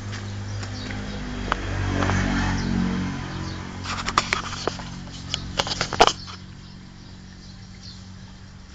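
An engine running with a steady low hum, swelling louder about two seconds in and easing off again. Near the middle it is joined by a quick cluster of sharp clicks and knocks.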